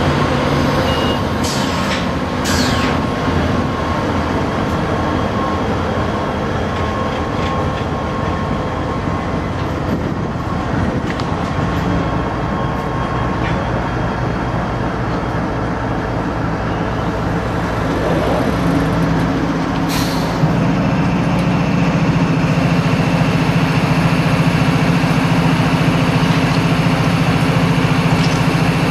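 A loaded coal train's diesel locomotives and cars rolling slowly while braking to a stop, with wheel and rail noise, a few sharp clanks in the first few seconds and a thin steady whine. About two-thirds in, it settles into the steady low drone of the diesel locomotives idling at a standstill.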